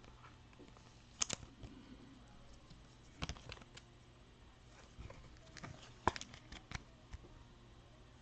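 Trading cards and thin plastic sleeves handled by hand: faint scattered rustles and light clicks of card stock and plastic, with sharper clicks about a second in, around three seconds and around six seconds.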